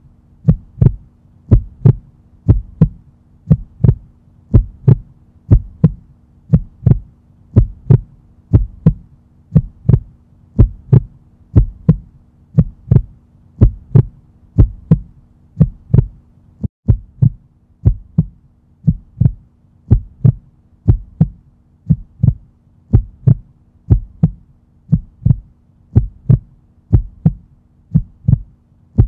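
Low, heartbeat-like double thumps, about one pair a second and very regular, over a steady low hum.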